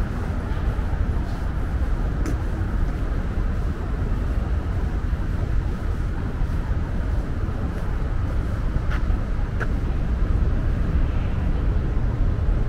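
Steady city street ambience with a deep traffic rumble. A few brief high squeaks or clicks come through about two seconds in and twice near nine to ten seconds.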